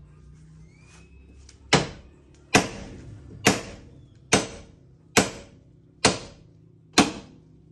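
Seven sharp knocks at a steady pace, a little under a second apart, each with a short ringing tail.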